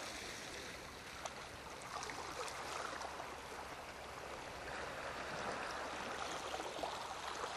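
Faint, steady wash of calm seawater lapping at the shore, with a light click about a second in.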